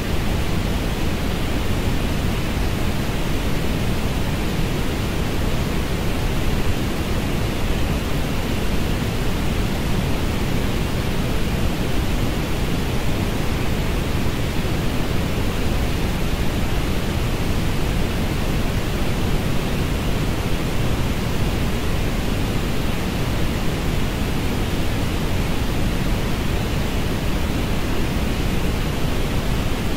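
Synthesized orange noise: a steady, unchanging rushing hiss, heaviest in the bass, with no pitch, rhythm or breaks.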